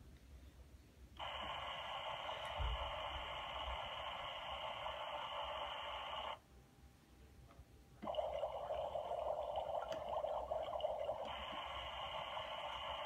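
Toy kitchen stove's electronic cooking sound effect: a steady hiss through its small speaker that starts about a second in, cuts off about six seconds in, and starts again about two seconds later.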